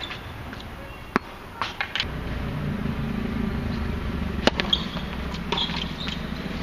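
Tennis ball bouncing a few times on a hard court, then struck with a racket on the serve, a sharp pop about four and a half seconds in, with a fainter return hit from the far end shortly after. Under it runs a steady low rumble.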